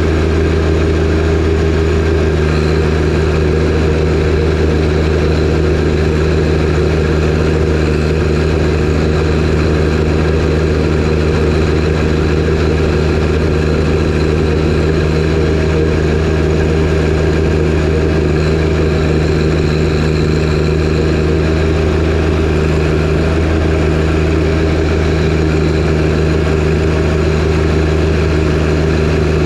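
John Deere 1025R compact tractor's three-cylinder diesel engine running steadily, its pitch holding even throughout.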